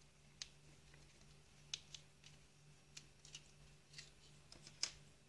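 Several faint, sharp clicks of a thin metal pin and a screwdriver tip working against a small plastic part from a coffee grinder unit as the pin is pried out. The loudest click comes near the end.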